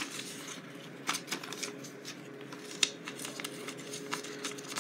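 A hand rummaging through small items in a plastic basket: faint, irregular clicks and rustles as things are picked up and moved about.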